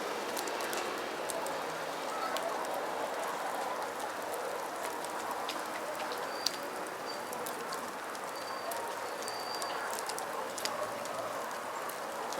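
Campfire crackling and popping: a steady hiss scattered with many sharp snaps. A few short, high chirps come in the middle.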